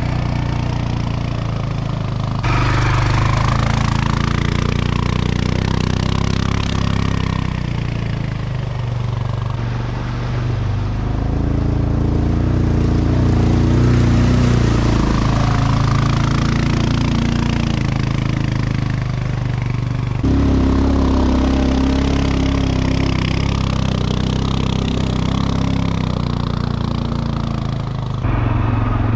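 Quad bike (ATV) engine running while being ridden, its revs rising and falling, with a few abrupt breaks where the sound jumps.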